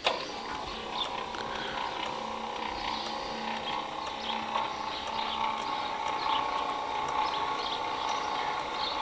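The two electric linear actuators of a Ducati SW7000 solar swing-gate opener run as they close both gate leaves. A steady motor whine starts suddenly. A lower hum under it drops out about five and a half seconds in.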